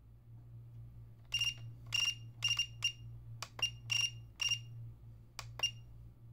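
ToolkitRC Q6AC charger's key beeper giving about a dozen short high beeps at uneven spacing, some in quick pairs, as its scroll wheel and buttons are worked through the menus. A steady low hum runs underneath.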